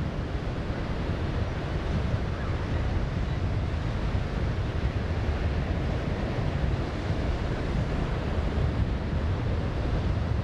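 Steady wind noise on the microphone over the wash of surf.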